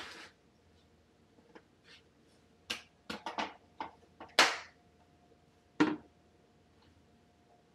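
A string of short clicks and knocks, with a louder brief rustle about four and a half seconds in, as a person moves about the kitchen handling things.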